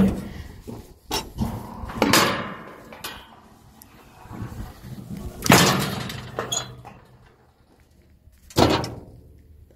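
A series of irregular heavy knocks and clanks, the loudest about five and a half seconds in and again near the end, several ringing out for up to a second after the hit.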